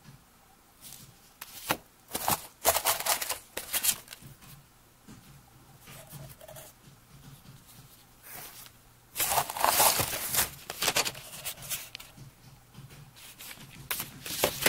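Rustling and crinkling of paper shred and packaging as items are handled in a cardboard box, in irregular bursts, the loudest run about nine to eleven seconds in.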